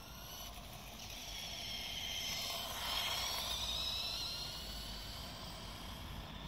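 Electric drive motors and gearing of a Lego RC café racer motorcycle whining as it drives past on asphalt. The high whine grows louder, peaks about three seconds in as the bike passes close, then drops in pitch and fades as it heads away.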